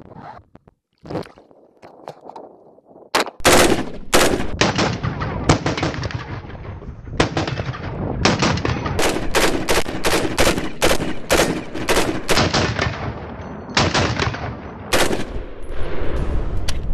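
HK416 5.56 mm short-stroke piston rifle firing a long string of about thirty rapid single shots straight out of a water bath. Firing begins about three seconds in, quickens around the middle, and stops a couple of seconds before the end. It runs without a stoppage: the gas piston system passing the water test.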